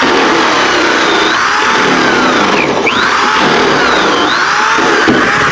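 Drill-driven coring bit grinding a hole through wet cement backer board, a continuous gritty grinding. The motor pitch keeps sagging and rising as the bit loads and frees up.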